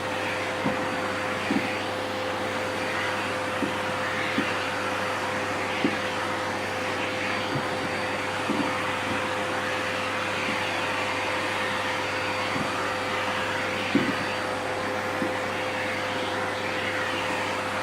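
Vacuum cleaner running steadily with a constant hum, with a few brief knocks every second or few seconds.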